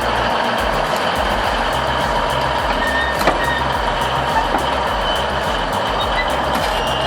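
Heavy tracked machine's diesel engine running steadily, with a regular low throb.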